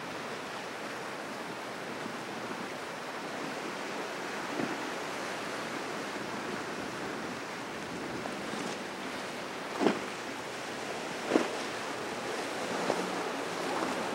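Steady rush of ocean surf and wind noise on the microphone, broken by a few short sharp thumps, the loudest two about ten and eleven seconds in.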